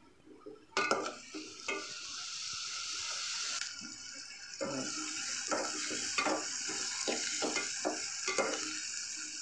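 Chopped onions and green chillies sizzling in hot oil in a metal pot, starting about a second in. A slotted metal spatula scrapes and clacks against the pot as they are stirred, in quick strokes of two to three a second through the second half.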